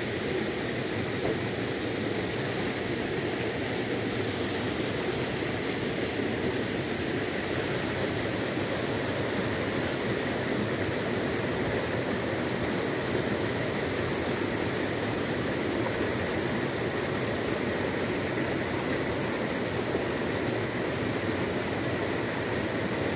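Steady, even rushing of water, with no breaks or single events.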